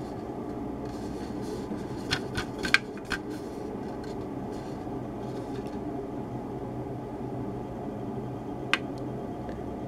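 Steady room hum of a fan or air conditioner, with a few light clicks and rustles of plastic model-kit parts being handled, clustered around two to three seconds in and once more near the end.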